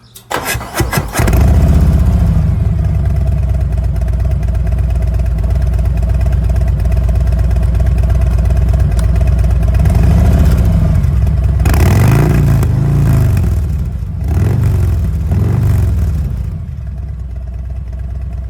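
Harley-Davidson Road Glide's V-twin engine starting about a second in, then idling loudly. The throttle is blipped in several revs around the middle, after which it settles back to a lower, steady idle.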